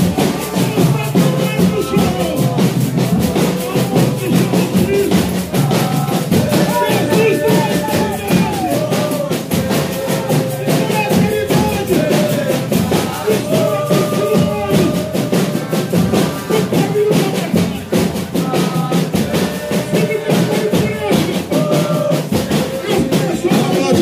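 Folia de Reis ensemble playing: accordion chords and guitar over a steady drum beat, with voices singing the folia's melody.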